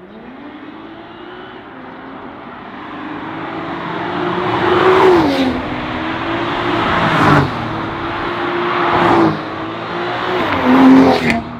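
BMW 840i's turbocharged inline-six through an ARMYTRIX Valvetronic exhaust, accelerating hard and getting louder, with four quick upshifts. Each shift gives a brief drop in pitch and a sharp crack from the exhaust.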